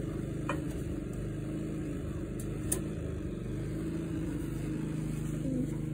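An engine running steadily, a constant low hum.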